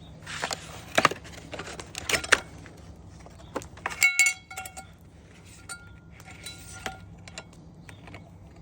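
Metal camp cookware being handled and opened out: knocks, rustling and light clinks, with one sharp ringing clink about four seconds in and a fainter ring a couple of seconds later.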